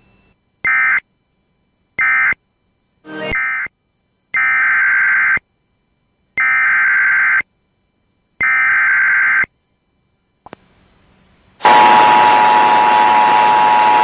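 Emergency Alert System SAME data bursts, the screechy digital code between warnings. Two short bursts come first, then three bursts of about a second each, one a second apart, which is the message header repeated. Near the end, the steady two-tone EAS attention signal starts over hiss.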